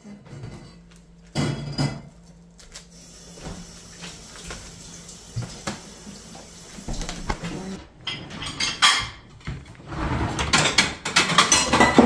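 Dishes and cutlery clattering and clinking as a dishwasher is unloaded, dense and loudest from about two-thirds of the way in. Before that there are scattered quieter knocks and handling sounds over a low steady hum.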